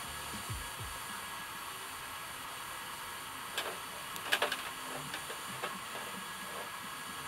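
TIG welding arc on mild steel: a steady, quiet hiss, with a few faint ticks around the middle.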